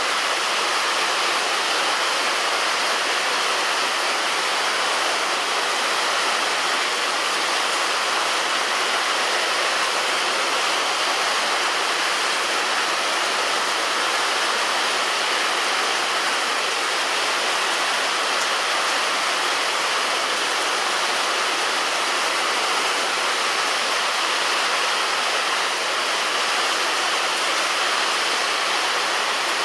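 Heavy rain falling on a roof: a dense, even hiss of drops that holds steady throughout, with no thunder.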